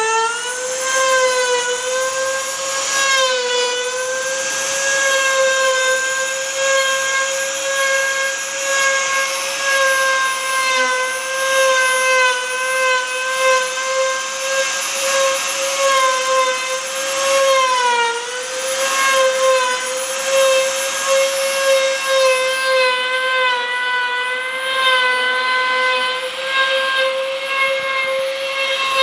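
CNC router's high-speed spindle whining steadily as its bit carves a relief pattern into wood. The pitch sags briefly a few times, about three seconds in and again about eighteen seconds in.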